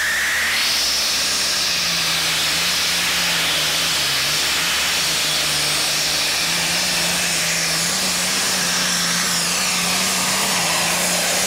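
A pulling tractor's engine running at full load as it drags the weight sled, picked up by a defective microphone that turns it into a steady, hissing noise with a low wavering drone beneath.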